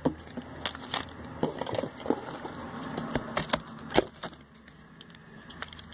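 Small cardboard boxes of nail polish being handled and set down: a scattered series of light taps and knocks, the sharpest about four seconds in.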